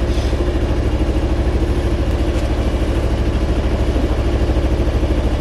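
A yacht's engine running steadily under way, with a low, even throb.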